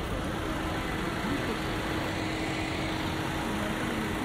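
Steady outdoor city ambience of a busy pedestrian square: an even wash of distant traffic and crowd noise with scattered faint voices and a faint steady hum.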